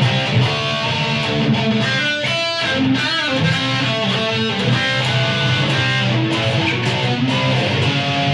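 Electric guitar played through a Boss ME-25 multi-effects unit on its UltraMetal preset, a steady run of changing notes and chords.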